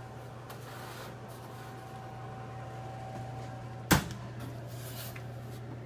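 A round tray of 3D-printed parts is slid out of a convection oven with faint light rattles, then a single sharp knock about four seconds in, over a steady low hum with a faint high whine that stops at the knock.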